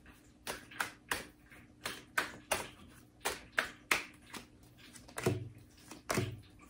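A deck of tarot cards being shuffled by hand: an irregular run of sharp card snaps, two or three a second, with a few duller knocks near the end.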